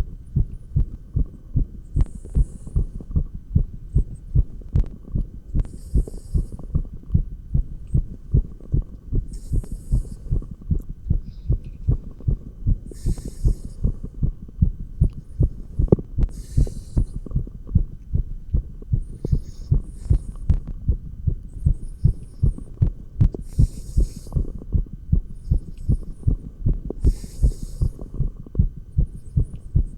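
Fast human heartbeat heard through a stethoscope: rapid, regular low thumps, the heart rate raised by dumbbell exercise. A short hiss comes about every three and a half seconds.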